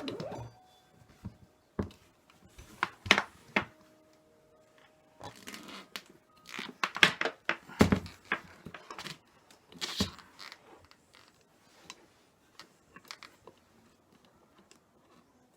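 Scattered knocks, clicks and light rattles of objects being handled, busiest in the middle and loudest around the middle, then only a few faint ticks near the end.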